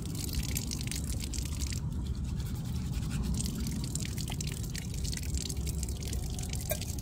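Water from an outdoor spigot dripping and splattering onto dead leaves while a steel camp cup is scrubbed clean, as many quick irregular drips over a steady low rumble.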